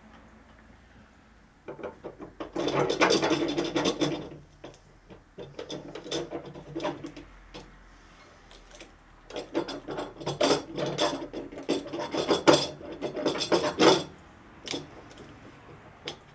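Socket ratchet wrench clicking in two spells of rapid clicks, about two seconds in and again from about nine to fourteen seconds, as a bolt is turned.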